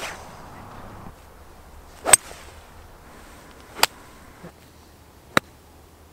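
A golf club strikes the ball three times, once each on crisp, sharp clicks about two seconds in, then a second and a half apart.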